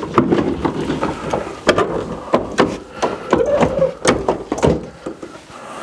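A wooden cabinet carrying a cyclone dust separator and its bin being shifted back into place: a run of irregular knocks, bumps and scrapes of wood and plastic.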